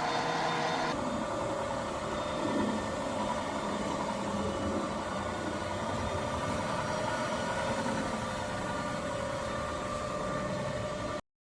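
Hwacheon HL380 engine lathe running, its spindle and gearbox giving a steady mechanical hum with a few held whining tones. The tones shift to a different pitch about a second in, and the sound cuts off abruptly near the end.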